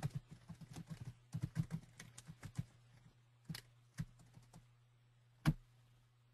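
Typing on a computer keyboard: a quick run of key clicks over the first three seconds or so, then a few single clicks, the loudest about five and a half seconds in. A low steady hum runs underneath.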